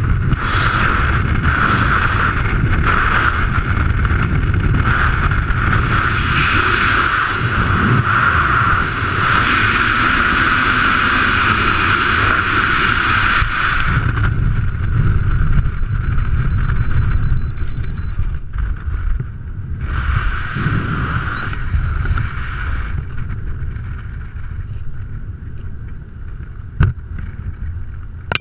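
Freefall wind rushing loudly over a skydiver's helmet-mounted camera, with a steady whistling band in it. About halfway the hiss drops and the rush slowly fades as the parachute opens and the fall slows. A single sharp click comes near the end.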